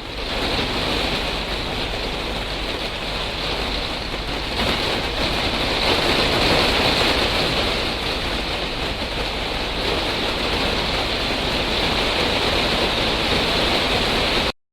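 Steady downpour of heavy rain, an even hiss with no pauses, that cuts off abruptly near the end.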